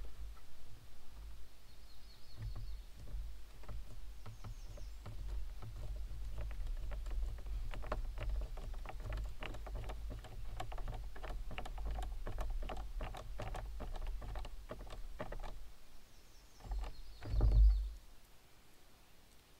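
Hand screwdriver driving screws through a hinge into a pine cupboard door: a quick run of small clicks, about three a second, under a low rumble. A bird chirps briefly, and a single thump near the end is the loudest sound.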